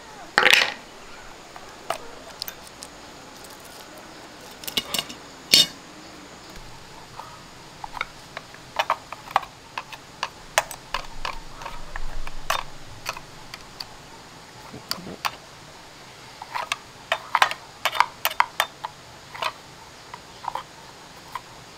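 Light metallic clinks, taps and clicks of tools and small metal parts being handled while a chainsaw is worked on. They come irregularly, with louder knocks about half a second in and around five seconds, and denser clusters later on.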